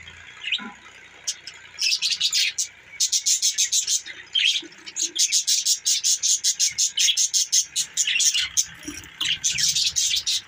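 Budgerigars chirping and chattering in quick, high, rapid runs. The chirps are sparse for the first second and a half, then come almost continuously.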